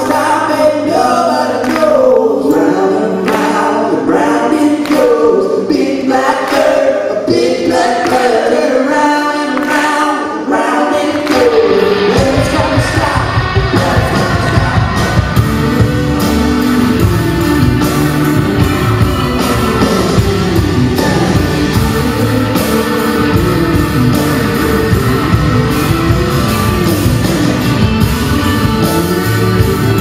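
Live rock band: several voices singing together to hand claps with no instruments, then about twelve seconds in the drums, bass and guitars come in and the full band plays on.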